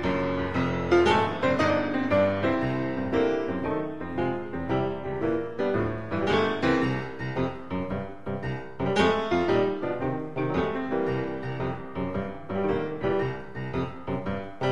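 Background piano music, many notes played at an even pace.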